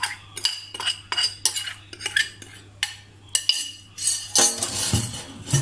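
Metal spoon scraping and tapping against a glass bowl as icing sugar is spooned out: a run of sharp clinks and knocks, busiest about four to five seconds in.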